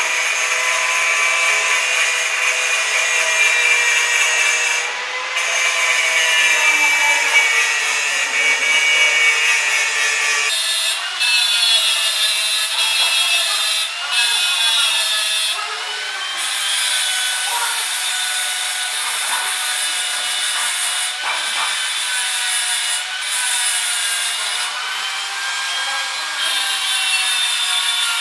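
Electric angle grinder with a buffing wheel running against stainless steel: a steady motor whine over a rubbing hiss. The whine wavers and shifts in pitch, most clearly about ten seconds in, as the wheel is pressed into the metal.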